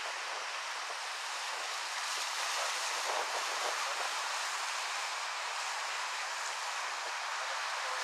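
Small waves washing onto a shore: a steady hiss of surf.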